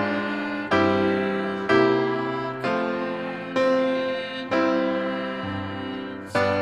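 Small mixed choir singing a hymn with piano accompaniment, a new piano chord struck about once a second and fading between strikes.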